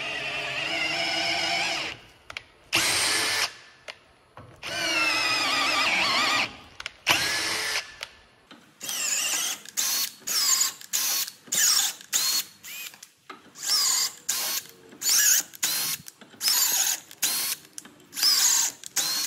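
Cordless drill running a tap to cut threads into holes in a metal plate held in a bench vise. In the first half there are several longer runs with the motor's pitch rising and falling. In the second half there is a quick string of short trigger pulses, each briefly spinning up.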